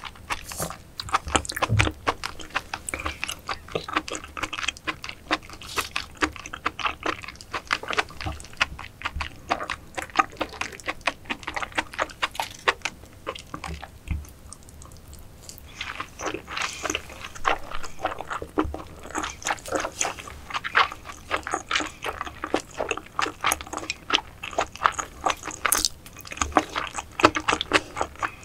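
Close-miked wet chewing and mouth smacking from mukbang eating, with dense rapid clicks throughout and a short quieter lull about halfway through.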